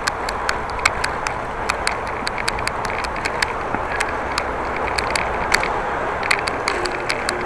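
Riding a bicycle: a steady rush of wind and rolling tyre noise, broken by sharp ticks and clicks a few times a second at irregular spacing.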